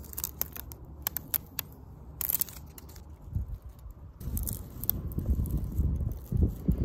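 Clear plastic transfer tape crinkling and crackling as a vinyl decal is pressed onto a bicycle frame tube and the tape is worked off, a string of short, sharp crackles. A low rumble grows louder in the second half.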